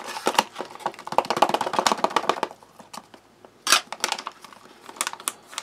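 Foil-lined plastic pouch of a REAL Field Meal freeze-dried ration crinkling and rustling as it is handled and opened up, its rehydrating chili stew being stirred: quick crackling for the first couple of seconds, then a few louder crinkles.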